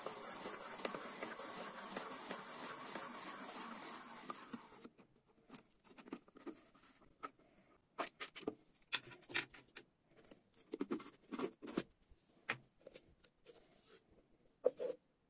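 A raw potato being turned through the metal blade of a homemade spiral potato cutter: a continuous crunchy scraping full of fine ticks that stops suddenly about five seconds in. Then scattered clicks and taps of the skewer, the plastic lid and the jar being handled, with one louder knock near the end.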